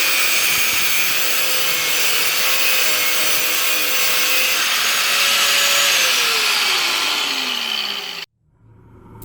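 A motor-driven power tool running steadily with a loud hiss, then switched off and winding down, its pitch falling for about two seconds before the sound cuts off abruptly.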